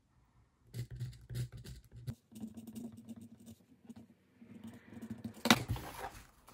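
A pen writing on a paper budget sheet on a table, scratching in short broken strokes, then a single sharp knock about five and a half seconds in.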